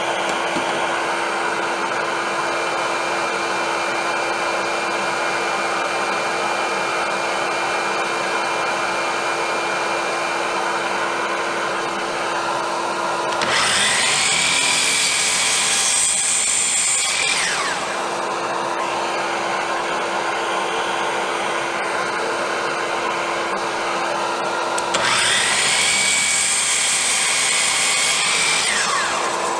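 Hercules dual compound miter saw switched on twice, each run about four seconds: the motor whine rises as the blade spins up, holds, then falls as it winds down. A steady drone with a constant hum runs underneath throughout.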